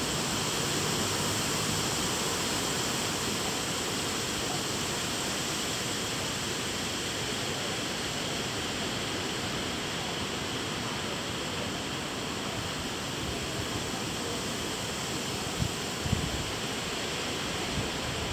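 Steady rushing noise of an outdoor storm, wind in the trees and possibly rain, with a couple of brief low buffets on the microphone about 16 seconds in.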